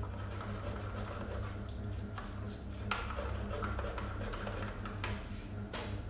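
A spoon clinking a few times against a mug, short sharp clinks over a steady low hum.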